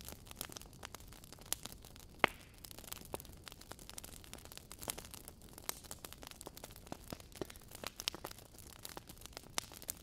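Burning logs in a fireplace crackling: irregular sharp pops and snaps over a soft low rush, with one louder pop about two seconds in.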